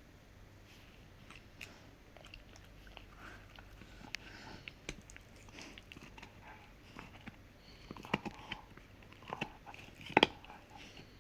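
A Rottweiler gnawing a hard hoof chew: irregular crunches and clicks of teeth on the hoof, growing louder and more frequent near the end.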